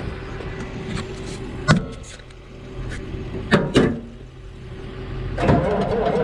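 John Deere 850 dozer's diesel engine beginning to crank over on the starter about five seconds in, a wavering, uneven churning sound, after a couple of sharp metallic clunks. Another engine idles steadily underneath.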